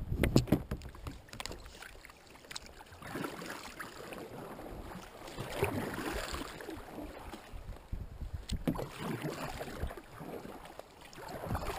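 Kayak paddle strokes: a double-bladed paddle dipping and pulling through the sea, with a rush of splashing water coming back every few seconds. A few sharp clicks and knocks sound at the very start.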